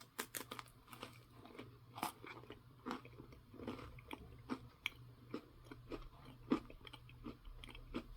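A person biting and chewing a cracker close to the microphone: a run of irregular crisp crunches.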